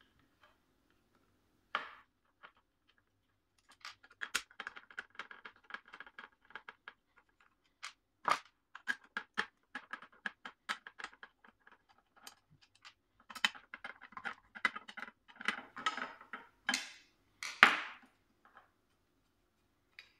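Small bolts being undone with a 3 mm T-handle Allen key from the stock rear fender assembly of a 2019 Triumph Speed Twin: runs of small quick clicks and scrapes as the key turns, with a few louder knocks as the bolts and the key are set down on the table.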